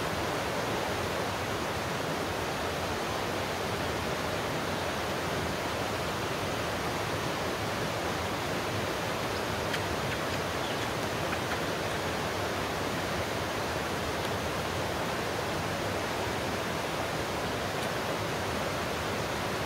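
Steady, even rushing noise that does not change, with a few faint ticks about halfway through.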